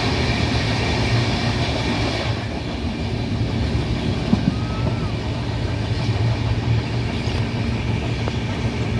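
Indian Railways LHB passenger coach running fast, heard from an open window: steady rumble of wheels on rail. The louder rush of a train passing on the next track cuts off about two seconds in.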